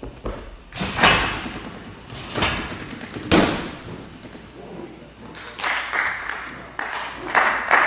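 Thuds from a gymnast's double mini-trampoline pass: impacts on the trampoline about one and two and a half seconds in, then a sharp landing thud on the mat a little after three seconds. Several short noisy bursts follow in the last few seconds, echoing in a large sports hall.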